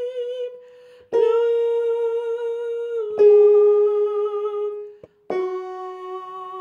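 A woman singing the soprano line of a hymn harmony. Long held notes with a slight vibrato, each starting sharply and stepping down in pitch, with a short break near the end.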